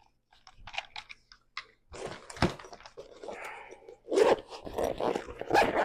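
Irregular rustling and crinkling with sharp clicks and knocks as camera gear is handled and packed into a small bag, loudest about four seconds in and again near the end.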